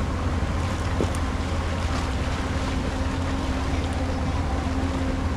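Motorboat engine running at a steady pitch, with water rushing past the hull and wind noise.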